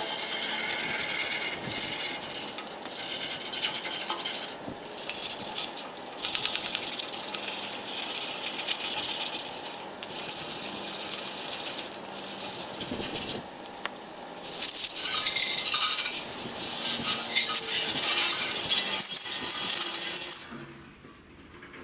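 Abrasive rubbing on the rusty steel of a jerry can, rust removal in stretches of a few seconds with short pauses between them. It falls away about a second before the end.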